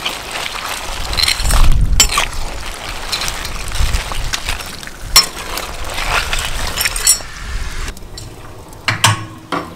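Crayfish shells clicking and clinking as live crayfish are handled and dropped into a large pot of cooking liquid, over a steady hiss. Near the end come a couple of sharp knocks.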